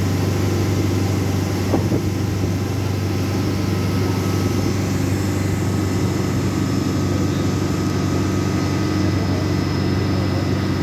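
Old boat's engine running steadily, a low, even drone, with one short knock about two seconds in.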